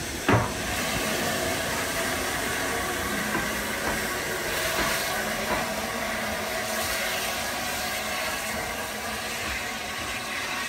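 Metropolitan Railway No. 1 steam tank locomotive running away along the line, a steady hiss of steam and running noise. There is a short sharp knock just after the start.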